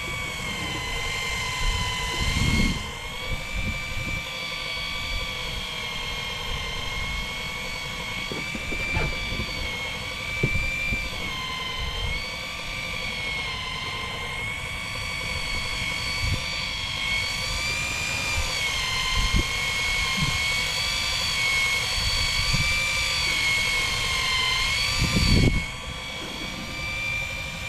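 Fishing boat's engine running steadily with a high whine whose pitch wavers slightly up and down, and a couple of low bumps, one a few seconds in and a louder one near the end.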